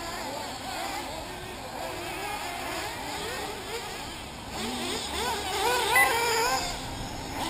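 Several 1/8-scale nitro RC buggy engines whining, their pitch rising and falling over and over as the cars rev and brake through the course. The engines are louder from about five seconds in.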